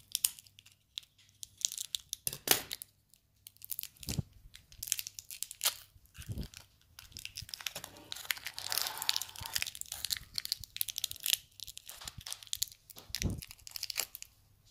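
Foil-lined plastic candy wrapper being crinkled and torn open by hand: irregular sharp crackles, with a denser run of rustling a little past the middle.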